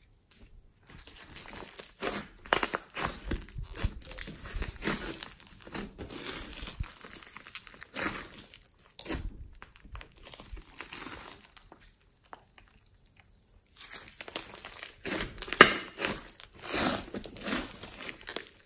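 Hands squeezing and stretching a large mass of glossy slime mixed with clay and small beads: irregular sticky crackling and popping. The crackling stops for a moment about twelve seconds in, then comes back louder.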